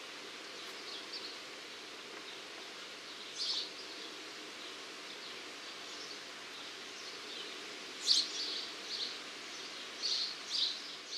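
Outdoor ambience: a steady background hiss with short, high bird chirps, one a few seconds in and a cluster of several near the end.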